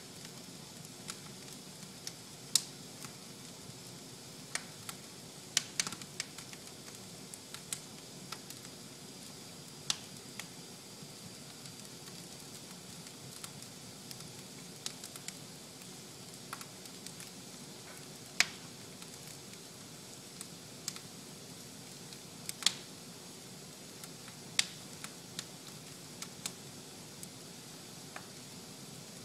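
Fire burning in a fireplace, crackling: irregular sharp pops every second or so over a steady low hiss, with a handful of pops much louder than the rest.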